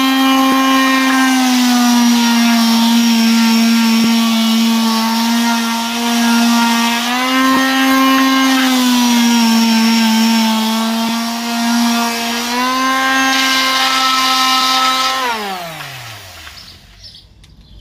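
Electric sander running with a steady high motor whine, its pitch sagging and recovering a few times. About fifteen seconds in it is switched off and the motor winds down, the whine falling in pitch and fading.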